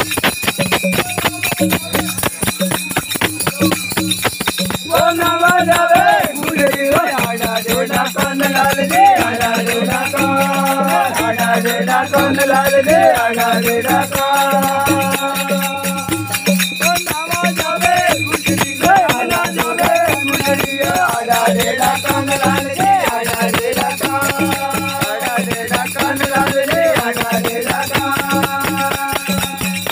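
Live Gavri folk music: rapid, continuous rattling and jingling percussion over a steady low drumbeat. A wavering melody comes in about five seconds in and returns in phrases.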